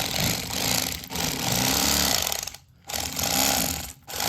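Electric fillet knife running as it cuts a bluegill fillet along the backbone, its motor stopping briefly twice.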